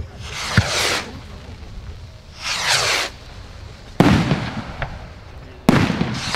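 Funke Bombenrakete fireworks rockets (category F3) being fired one after another: three hissing whooshes of rockets, and two sharp bangs of their bursts, about four seconds in and near the end.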